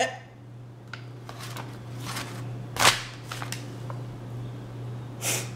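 Paper-and-foil sandwich wrapper crinkling as it is handled: scattered short crackles, the loudest about three seconds in, and a longer rustle near the end.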